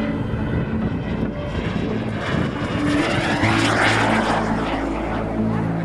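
Radio-controlled model turbine jet making a low, fast pass: a rushing jet whoosh that swells to its loudest about four seconds in, then fades.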